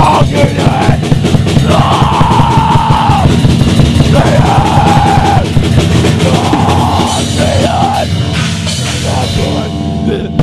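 Loud heavy rock song with a fast-pounding drum kit and several long held high notes over it; the music thins out about eight seconds in.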